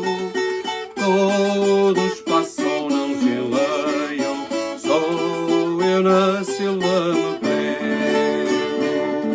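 Viola campaniça, the Alentejo folk guitar, playing the song's tune in repeated plucked and strummed chords, settling on a ringing chord near the end.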